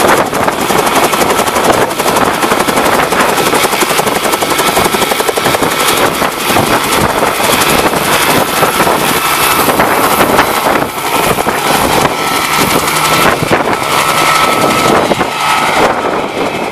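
Bell 47 helicopter's two-blade main rotor chopping rapidly over the drone of its piston engine as it lifts off into a low hover and flies away.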